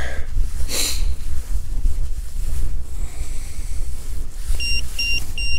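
Wind buffeting the microphone as a steady low rumble. Near the end come three short, high electronic beeps in quick succession from the handheld EMF meter.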